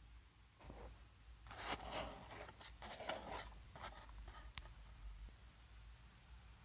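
Faint rustling and scraping from packaging being handled, with a sharp click about four and a half seconds in.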